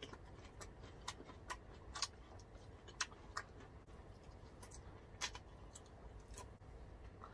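Two people eating grilled pork belly and squid by hand: faint chewing with irregular, scattered clicks of lip smacks and mouth sounds.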